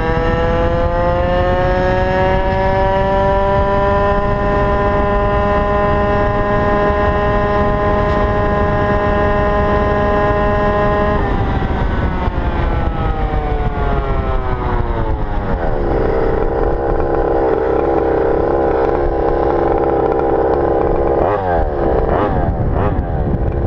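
Go-Ped GP460 two-stroke engine held at wide open throttle, its pitch climbing and then holding high for several seconds; the owner hears a funny sound from it at full throttle. About eleven seconds in it comes off the throttle, the pitch falls over a few seconds and settles at a steady lower speed, with a short rev near the end before it rises again.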